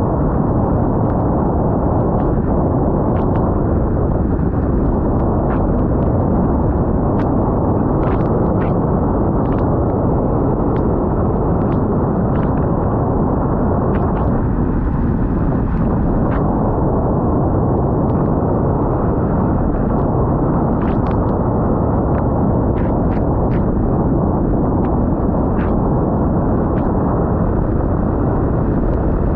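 Heavy, steady wind rumble buffeting a GoPro Hero 9's microphone, with scattered sharp ticks that fit raindrops striking the camera.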